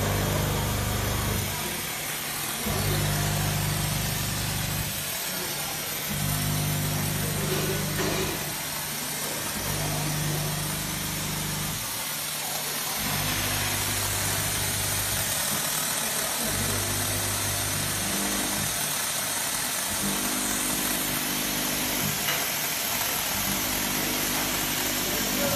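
YS6A-V electric steam cleaner jetting steam from its hand wand with a steady hiss. A low hum from the machine cuts in and out about every three and a half seconds.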